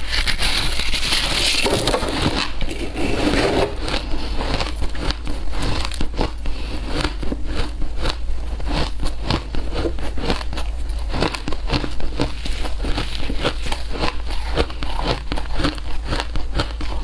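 Close-miked crunching of frozen shaved ice. A bite into a block of packed shaved ice crushes it with dense crackling over the first few seconds, then chewing goes on as a long run of separate sharp crunches.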